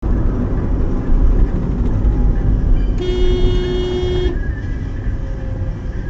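Car road and engine rumble heard from inside the cabin as the car slows, with one steady car horn blast lasting just over a second about three seconds in.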